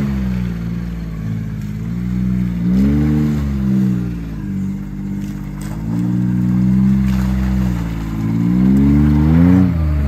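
John Deere Gator XUV utility vehicle's engine revving up and falling back again and again as it pulls through boggy ground. The sharpest rises in pitch come about three seconds in and near the end.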